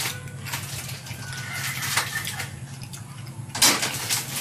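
Wet mouth sounds and soft clicks of eating a ripe jackfruit bulb. About three and a half seconds in comes a sudden loud rustling as the half jackfruit is picked up and handled, over a steady low hum.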